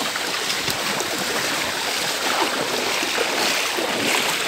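Floodwater sloshing and splashing steadily as people wade through it beside an inflatable boat.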